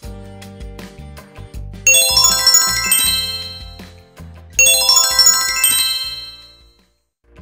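Background music with a low bass line, broken twice by a bright chiming flourish of many high ringing tones that strikes suddenly and dies away over a couple of seconds. The sound fades out just before the end.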